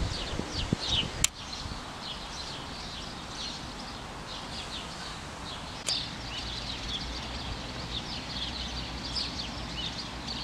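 Small birds chirping and twittering continuously over a steady low outdoor rumble, with a few low muffled sounds in the first second and two sharp clicks, about a second in and near the middle.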